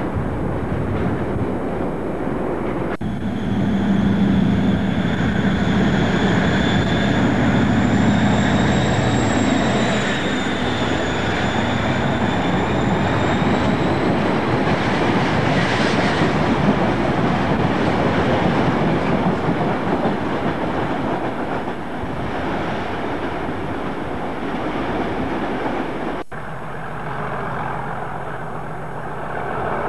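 Container wagons of a freight train rolling past close by, with a steady rumble of wheels on rail. A high, wavering wheel squeal runs from about three seconds in until about halfway. Near the end the sound changes abruptly to a quieter, steadier hum of another train in the distance.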